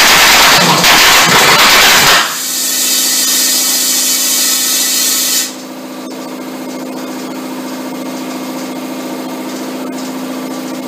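Small homemade pulse detonation engine, a spark-ignited tube fed propane and compressed air, running: a loud rushing roar for about two seconds, then suddenly quieter and settling into a steady buzzing drone at one pitch, which loses its hiss about halfway through.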